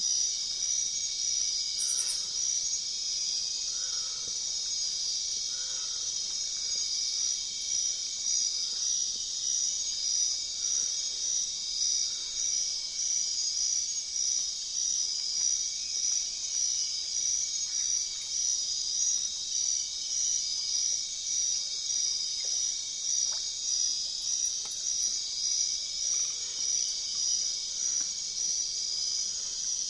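Insect chorus, crickets or cicadas, giving a steady high-pitched buzz that pulses evenly throughout.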